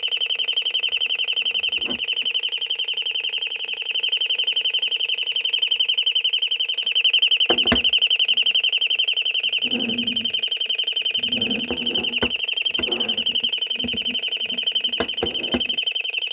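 Royal Smoke, Gas and Fire Alarm sounding through its built-in loudspeaker, not a buzzer or piezo: a continuous high tone with a very fast warble that sounds like a flock of birds. A few sharp clicks cut in around the middle and near the end.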